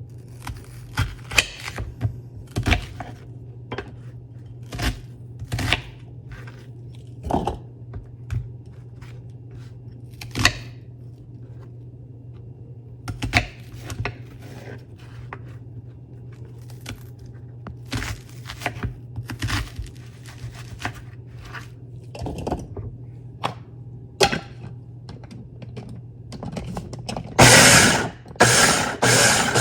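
Kitchen utensils and dishes knocking and scraping on a counter in short, scattered clatters over a steady low hum. Near the end a small kitchen appliance motor starts and runs loudly, chopping the ingredients.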